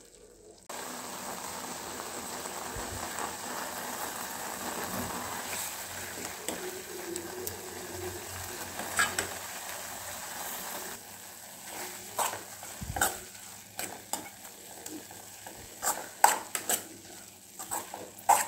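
Grated carrots simmering in milk and ghee in a steel pan give a steady sizzling hiss. From about eleven seconds in, a steel spoon stirs and scrapes the thickening mixture against the pan with scattered sharp clinks and knocks.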